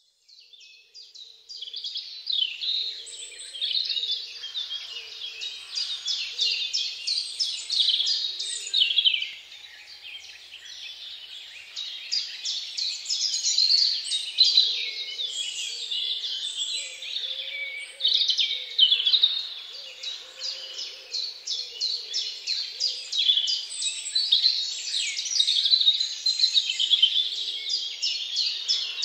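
Many birds chirping and singing at once: a dense, unbroken chorus of rapid, high, overlapping notes and trills.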